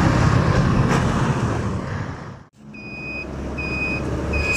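Motorcycle engine and traffic noise, riding close behind trucks in a jam. It cuts out sharply about halfway through, then a high electronic beeper sounds three times, less than a second apart, like a vehicle's warning alarm.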